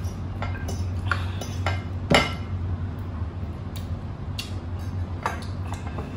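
Spoons and forks clinking and scraping against ceramic plates as two people eat, in scattered short clicks with one louder clink about two seconds in. A steady low hum runs underneath.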